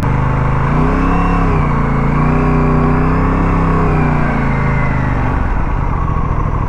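Aprilia RS 457's parallel-twin engine running, its pitch rising and falling in a few gentle revs from about a second in, then settling back to a steady run near the end.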